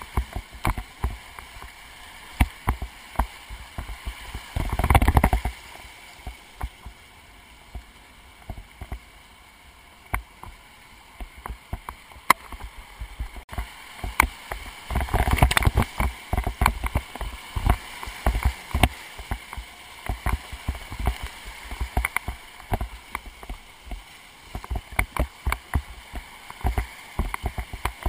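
Kayak running river rapids: rushing whitewater with frequent sharp splashes against the boat, surging loudest about five seconds in and again around fifteen seconds, calmer in between.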